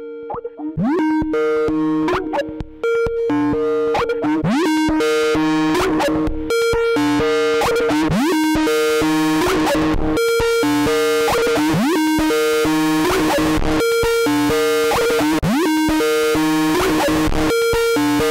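Skype call ringtone repeating over and over, played very loud and distorted, with synth tones and quick rising glides piling up into a harsh din.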